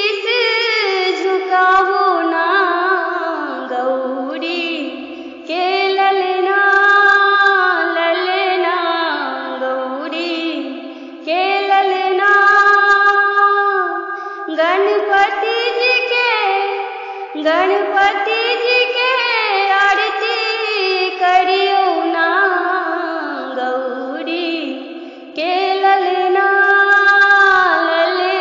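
A woman singing a Ganesh aarti, a devotional hymn, in long held phrases with short breaks between them.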